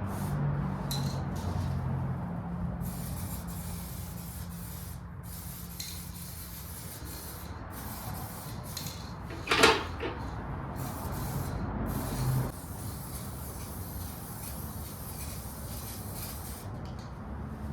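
Aerosol spray can of gloss black paint hissing in repeated bursts with short pauses between them, and a single knock about ten seconds in.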